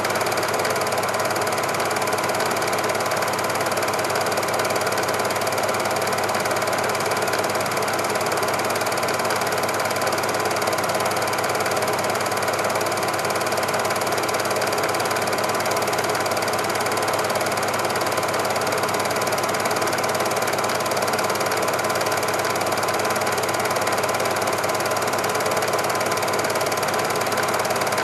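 Steady, unchanging mechanical whirr with a fast, even clatter, typical of a cine film projector running. It does not follow the steam and locomotive action in the picture.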